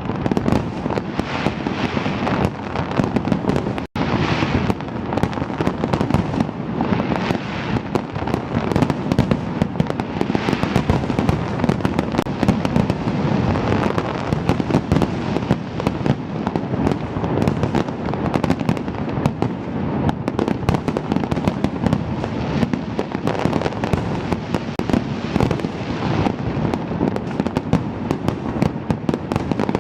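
Large fireworks display with dense, continuous bursts of shells and crackling, the bangs overlapping into an unbroken barrage. The audio drops out for an instant about four seconds in.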